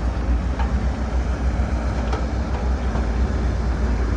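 Heavy diesel engine running with a steady low rumble, with a few faint clicks.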